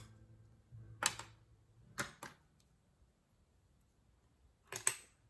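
Plastic Lego pieces clicking and knocking together as they are handled and fitted, a handful of separate sharp clicks.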